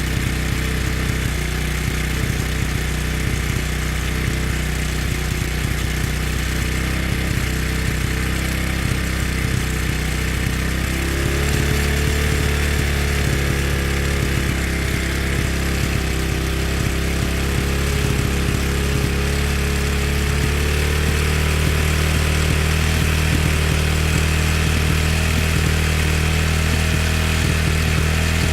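Motorcycle engine running steadily at low revs. The engine note steps up slightly about eleven seconds in, and it gets a little louder again around twenty seconds in.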